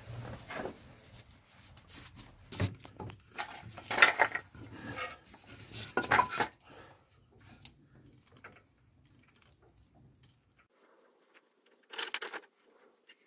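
Metal hand tools clinking and knocking as brake caliper sliding pins are fitted and done up. The clinks come in clusters, loudest about four and six seconds in, with another burst near the end.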